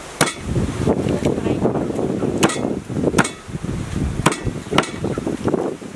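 A blade chopping a raw whole chicken apart on a thick wooden chopping block, making several sharp, irregularly spaced knocks.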